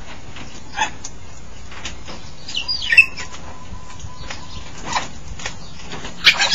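African grey parrots calling: a short whistled call sliding down in pitch about halfway through, the loudest sound, with a few brief harsh bursts around it and a quick cluster of them near the end.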